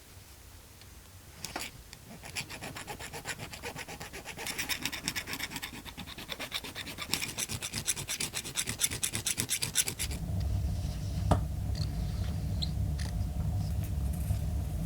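A metal coin being hand-filed, with rapid back-and-forth rasping strokes several times a second that grow louder. About ten seconds in, the strokes stop and a low steady hum takes over, with a single sharp click shortly after.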